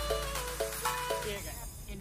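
Background music: a melody of short pitched notes.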